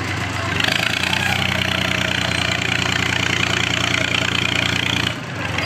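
Steady motor hum of fairground ride machinery with a hiss above it, rising in about a second in and cutting out briefly near the end.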